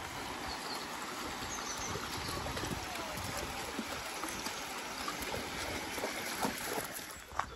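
Shallow stream running over stones, a steady rush of water, with dogs wading in it and a couple of short splashes near the end.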